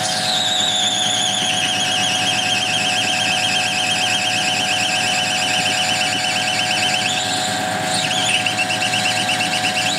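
A 19.75 mm twist drill boring into a spinning plastic workpiece on a metal lathe, screeching with a loud, wavering high pitch that drops sharply as the cut starts and steps lower near the end, over the steady hum of the lathe.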